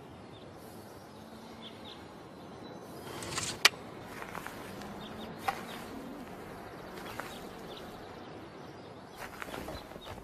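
Quiet outdoor ambience: a steady hiss with faint bird chirps and a few sharp clicks, the loudest about three and a half seconds in.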